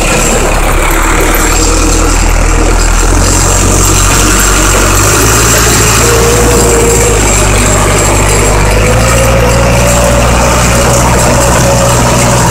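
Forklift engine running steadily and loud. A whine comes in about six seconds in and again from about nine seconds on, rising slightly.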